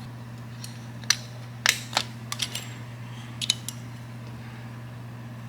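Sharp metal clicks and clinks as a screwdriver pries a pushrod cover's spring-loaded collar down and the cover is worked into its seat, several of them between about one and four seconds in, over a steady low hum.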